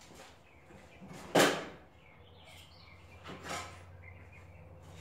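Hand tools clanking as someone rummages for an Allen socket: one sharp metallic clank about one and a half seconds in, then a softer rattle about two seconds later.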